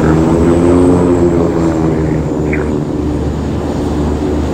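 Boeing 777 freighter's twin jet engines running on final approach to landing: a steady, loud jet drone with layered humming tones that swell slightly in the first second or so.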